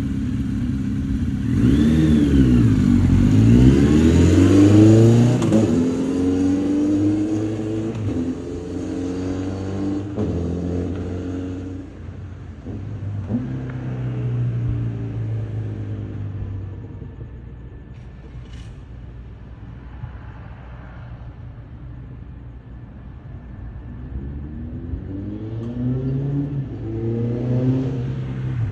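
Honda CB1300 Super Bold'or inline-four running through a Striker full exhaust with a Maverick titanium silencer, its secondary air system cancelled. The engine speed dips and climbs over the first few seconds, settles to a steady low idle, then picks up again near the end.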